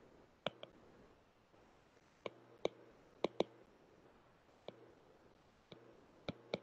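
Stylus tip tapping and clicking on an iPad's glass screen during handwriting: about ten short, sharp clicks at irregular spacing.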